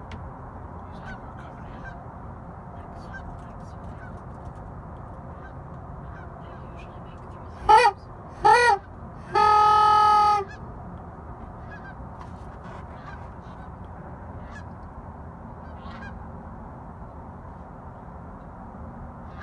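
Goose honking: two short, loud honks about eight seconds in, followed by one long flat honking note lasting about a second. Fainter honks from distant geese come and go throughout.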